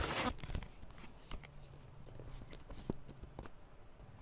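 Hands handling sneakers and a cardboard box: a short rustle at the start, then scattered light taps and clicks.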